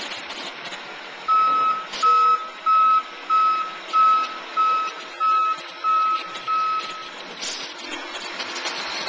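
Garbage truck's reverse alarm beeping nine times at a steady pace of about one and a half beeps a second over the truck's running engine; the beeping stops about seven seconds in.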